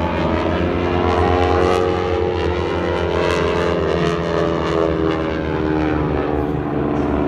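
Engines of aerobatic display aircraft flying in formation, a steady drone whose pitch slides a little lower over the second half as they pass.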